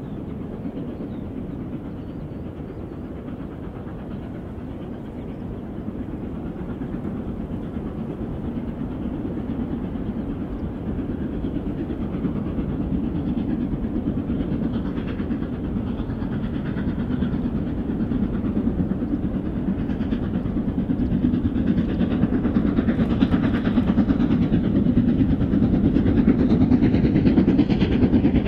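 Steam locomotive 6201 Princess Elizabeth, an LMS Princess Royal class four-cylinder Pacific, working a passenger train. Its exhaust and the running noise of the train grow steadily louder as it approaches.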